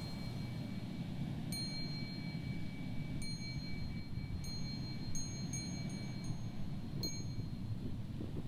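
A small, high-pitched ritual bell struck about eight times at irregular intervals, the strikes coming faster around the middle, each ring sustaining into the next, over a low background rumble.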